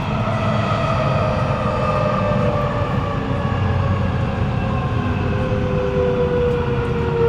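Interior sound of a Kawasaki Nippon Sharyo C751B metro train braking into a station: the traction motors whine in several tones that fall slowly in pitch as the train slows, over a steady running rumble.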